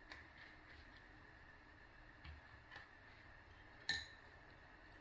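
Near silence with faint rustles of a thin tofu skin sheet being rolled by hand, and one sharp clink about four seconds in.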